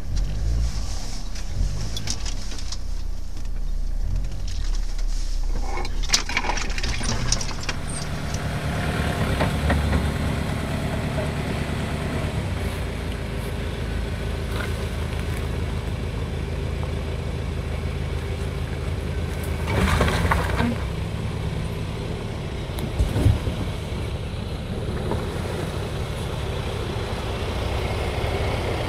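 Land Rover Defender 4x4's engine running at low revs as it crawls along a muddy track, with a short louder rush of noise about twenty seconds in.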